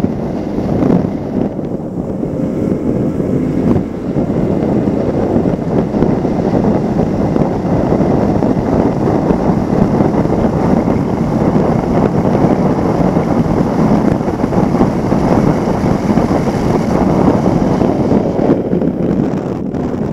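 Formula One powerboat running flat out, its racing outboard engine almost buried under heavy wind buffeting on the microphone and the rush of water spray; a steady, loud noise with no let-up.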